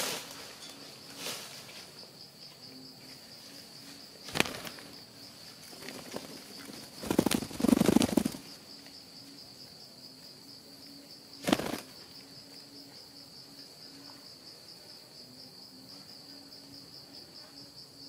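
Parakeets flapping their wings as they fly in and land, in short bursts about four, seven and eleven seconds in, the one at seven to eight seconds the longest and loudest. A steady high-pitched insect drone runs beneath.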